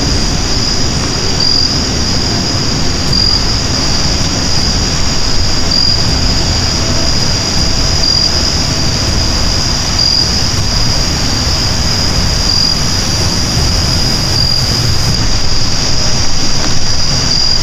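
Loud, steady high-pitched drone of an insect chorus, swelling slightly every couple of seconds, over a low rushing noise.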